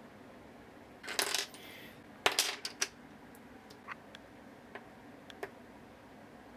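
LEGO minifigure pieces clattering and clicking as they are handled: a short rattle about a second in, a cluster of sharp clicks just after two seconds, then scattered light ticks.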